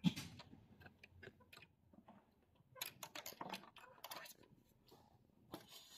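Faint, scattered clicks and light taps of hard plastic parts being handled inside an Epson L3110 inkjet printer, as the print-head carriage is pushed by hand and its flat ribbon cable is touched.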